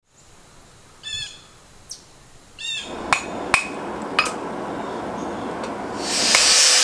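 Two short bird chirps over a quiet background, then a steady rushing noise with three sharp, ringing metal strikes of a hammer on steel. A loud hiss swells near the end.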